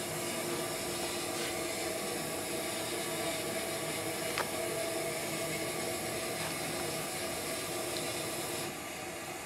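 Steady background hiss with a faint hum, broken by one short click about halfway through; the hiss dips slightly near the end.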